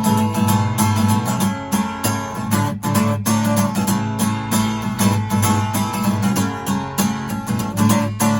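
Acoustic guitar strummed in a steady rhythm, with no singing: an instrumental passage of a song.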